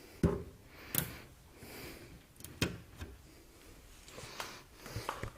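Hammer knocking on the inside of a Nissan S15's crash-damaged rear panel to push the dented sheet metal back out: a few sharp, irregularly spaced knocks, the first the loudest.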